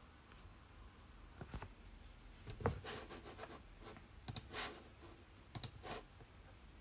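Light clicks and scratchy handling sounds in four short clusters, the loudest click about two and a half seconds in.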